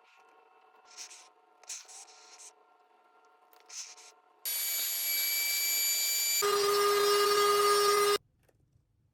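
A few short hissing strokes from sneaker-cleaning work, then a loud, steady hiss from a shoe-restoration tool with a steady whine in it, gaining a lower hum about two seconds later, and cutting off abruptly.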